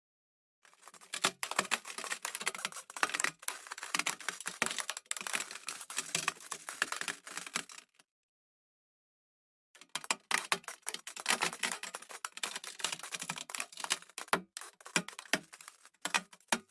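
A friction sound effect: a dense, rapid crackling and clicking scrape. It comes in two takes of several seconds each, with a clean silence between them about eight seconds in.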